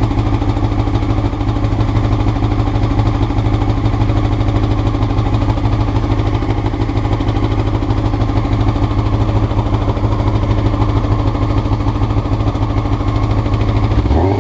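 Honda CBR motorcycle engine idling steadily with an even pulse, an idle the owner calls rough, with new carburettor float needles fitted. Right at the end the revs start to climb.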